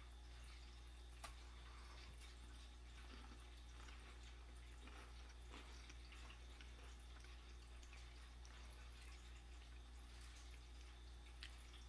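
Near silence: a steady low hum under faint, sparse mouth sounds of someone chewing a cocoa cream sandwich biscuit, with a small click about a second in and another near the end.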